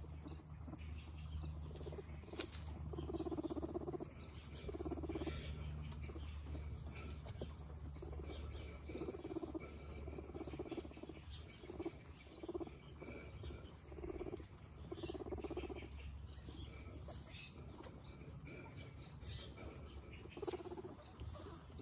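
A herd of guinea pigs munching carrot slices: a busy crunching and nibbling that comes in many short spells.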